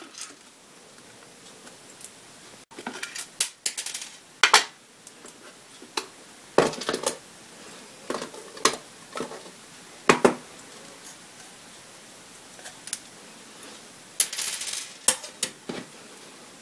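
A smartphone and its cardboard box and clear plastic tray being handled: scattered clicks, taps and short rustles as the pieces are lifted out and set down.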